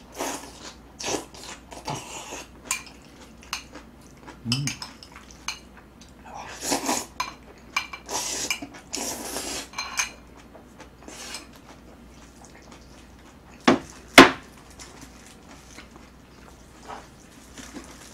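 Close-up eating of jjajang noodles: chopsticks clicking against a ceramic bowl and tray, with slurps and chewing. Two sharp clinks, about three-quarters of the way through, are the loudest.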